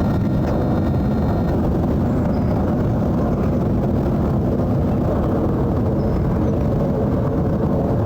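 Jet airliner passing overhead, its engines a steady low rumbling roar.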